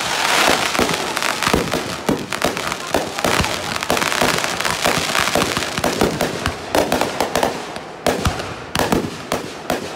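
Aerial fireworks bursting in a rapid, unbroken string of bangs and pops.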